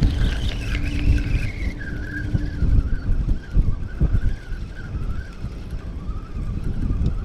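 A motor's whine slowly falling in pitch, over an uneven low rumble; a steady low hum fades out about two and a half seconds in.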